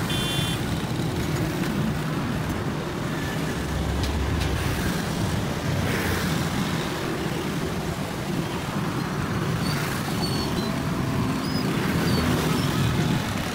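Steady road traffic noise from passing vehicles: an even, continuous low rumble.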